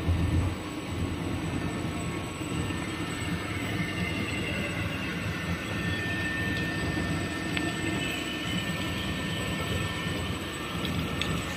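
Label slitting and rewinding machine running, giving a steady mechanical hum from its rollers and web, with a thump right at the start and a faint high whine through the middle.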